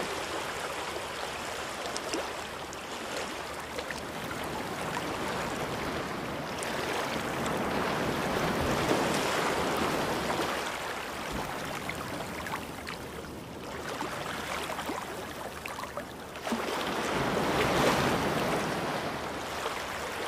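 Ocean surf: a steady rush of waves that swells louder and ebbs back, with the biggest swells about halfway through and again near the end.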